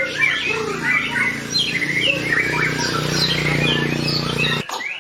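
White-rumped shama singing a fast, varied song of chirps, sweeping whistles and sharp notes. A low steady hum underneath cuts off abruptly near the end.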